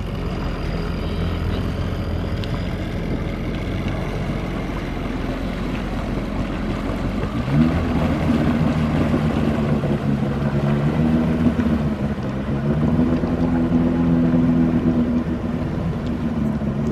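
Jet ski engine running on the water. About seven seconds in it revs up and holds a steady higher pitch, then climbs a little again near the twelve-second mark.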